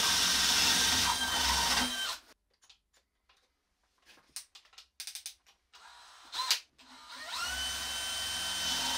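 DeWalt DCD999 cordless hammer drill in first gear boring a spade bit into a timber beam, running easily and stopping about two seconds in. After a quiet stretch with a few clicks and a knock, the drill starts again with a rising whine about seven seconds in and runs steadily, drilling with the 20 mm spade bit.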